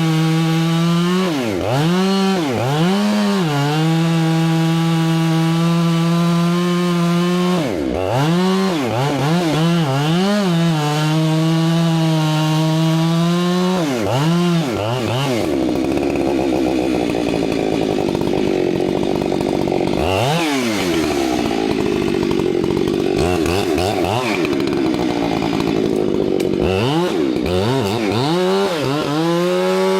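Two-stroke chainsaw cutting into a tree, running at high throttle with its pitch dropping and climbing back several times as the throttle is eased off and opened again. For much of the second half it runs lower and rougher, then comes back up to full speed near the end.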